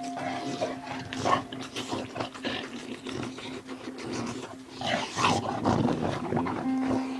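A pet dog making rough vocal sounds in bursts, a short one about a second in and a longer run around five to six seconds in.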